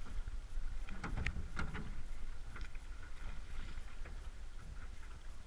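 Oars of an aluminium rowboat pulling through lake water, with a cluster of splashes and knocks about a second in and fainter ones later, over a steady low rumble.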